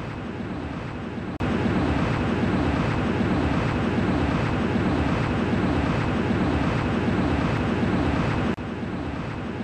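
Jet aircraft engine sound effect: a steady rushing drone that jumps louder about a second and a half in and drops back near the end.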